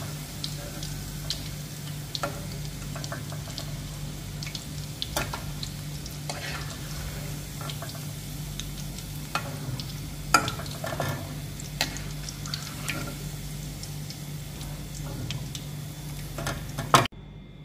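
Mutton kababs sizzling in hot oil in a kadhai while a perforated steel slotted spoon scrapes and clinks against the pan, lifting them out. A steady low hum runs underneath. There is a sharp clatter near the end, then the sound cuts off suddenly.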